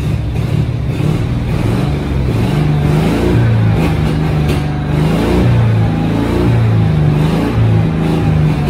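Engine of a 1984 Cushman three-wheeler, running again after 36 years parked, revved up and down, its speed rising and falling every second or so.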